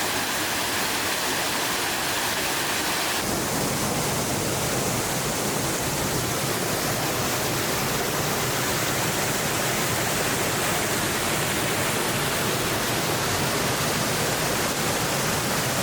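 Waterfall rushing steadily, an unbroken wash of falling water; it grows a little brighter about three seconds in.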